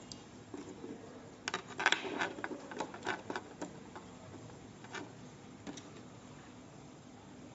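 Light clicks and taps from the small parts and circuit board of a security camera being handled and fitted by hand. The clicks come in a quick cluster from about one and a half to three and a half seconds in, then twice more, singly.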